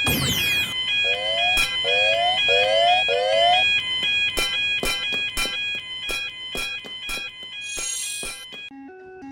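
Railroad crossing warning bells ringing in a rapid, alternating two-note pattern. A falling sweep at the start, rising chirps and a run of sharp evenly spaced clicks are layered over the bells. Near the end a lower-pitched pair of alternating bell notes takes over.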